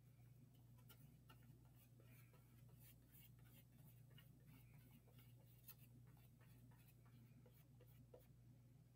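Faint scratching and light ticks of a paintbrush dabbing and stroking paint on paper, over a steady low hum.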